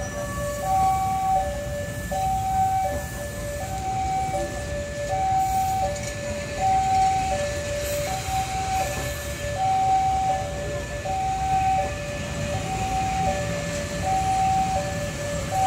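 Railway level-crossing warning alarm sounding a two-tone electronic chime, a high and a low tone alternating about every three-quarters of a second, over the low rumble of passenger train coaches being shunted past.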